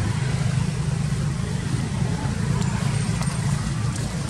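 A steady low rumble with a faint background hiss.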